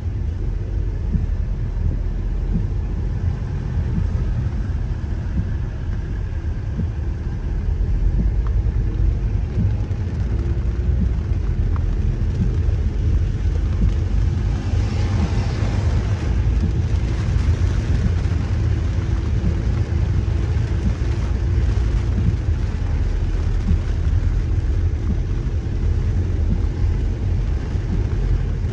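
Steady low rumble of a car driving on a rain-soaked road, heard from inside the cabin, with the hiss of tyres on water and rain on the car. A louder hiss swells for a couple of seconds about halfway through.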